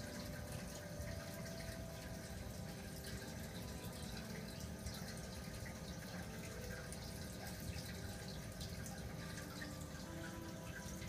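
Reef aquarium water trickling and dripping steadily, with small scattered drips and a few faint steady tones underneath.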